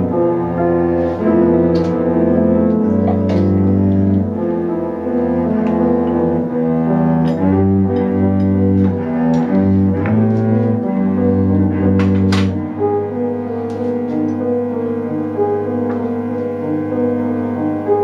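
Cello and piano playing a sonata together: the bowed cello holds long, low notes while the piano plays struck notes above.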